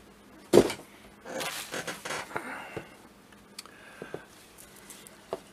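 A sharp knock about half a second in, then rustling and scraping as hands turn over a plastic fashion doll in its cloth outfit, ending in a few light clicks.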